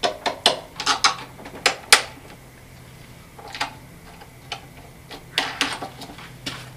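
Irregular sharp clicks and knocks from a lawnmower's folding handle bracket and its plastic locking knob being worked by hand: a cluster in the first two seconds, then a few more about three and a half and five and a half seconds in.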